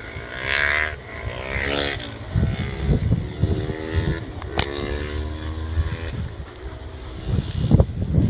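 A motor engine drones in the distance, its pitch drifting up and down, with the thud and rustle of footsteps through scrub underneath.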